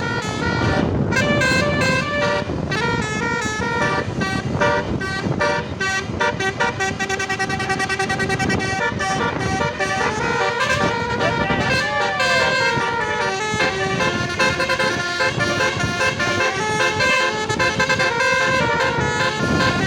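Basuri 'telolet' multi-tone bus horn playing a long run of melody, one stepped note after another without a break, over the rumble of engine and traffic.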